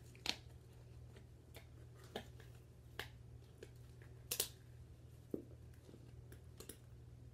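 Plastic doll packaging being handled, giving scattered sharp clicks and crinkles, the loudest a quick double click about four seconds in, over a steady low hum.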